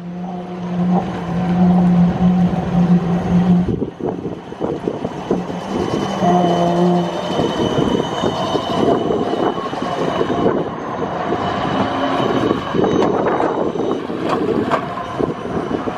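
Siemens Combino tram passing close by on its rails. A steady low hum for the first few seconds gives way to a dense clatter of wheels over the track and switches, with a faint high wheel squeal in the second half.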